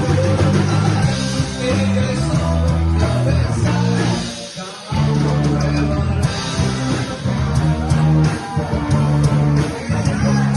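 Rock band playing, with electric guitar and a bass line carrying the song; the band stops briefly about halfway through, then comes back in.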